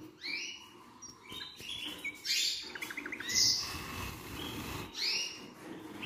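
Canaries chirping: a string of short, high calls, with a brief rapid trill near the middle.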